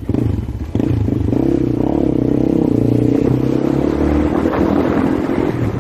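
A motor vehicle engine running close by: a steady drone that gets louder about a second in and then holds.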